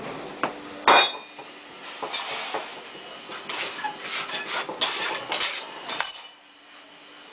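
Metal hand tools clinking, knocking and scraping while working a sand casting mold: a loud knock about a second in, then a quick run of clinks and scrapes that stops about a second before the end.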